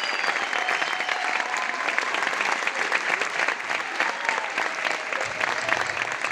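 Audience clapping steadily, with a few voices calling out over it. About five seconds in, low guitar notes start as the next piece begins.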